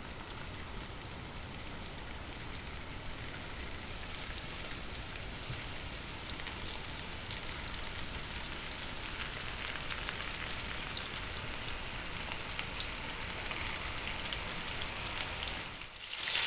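Flour-dredged pike pieces frying in hot vegetable oil in a frying pan: a steady sizzle full of fine crackles, growing slightly louder as more pieces go in. It dips briefly near the end.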